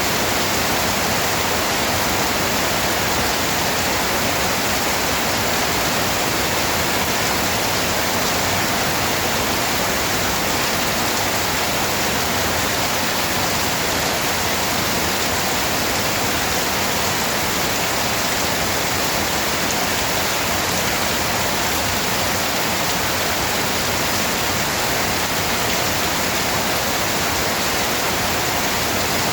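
Steady rain, an even, unbroken hiss with no single drops standing out.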